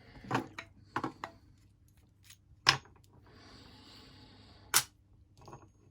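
Small metal clicks and taps of padlock parts and tools being handled during reassembly of a Lockwood padlock, with two sharper, louder clicks, one nearly three seconds in and another about two seconds later, and a soft scraping hiss between them.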